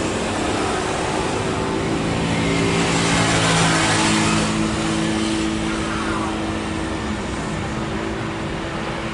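Boeing 737 airliner's turbofan engines running as it rolls along the runway: a steady jet roar over a low engine hum, swelling to its loudest about three to four seconds in and easing after.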